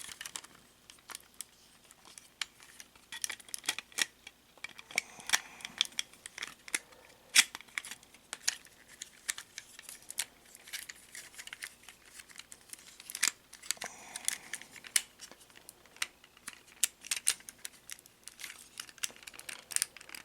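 Parts of a Masterpiece Ironhide transforming toy robot clicking, snapping and rattling as it is handled and folded back together, with many sharp clicks and short scraping bursts scattered through.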